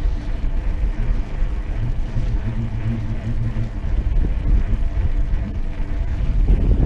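Wind buffeting the microphone of a camera on a moving mountain bike: a loud, unbroken low rumble, with a steadier low hum in the middle.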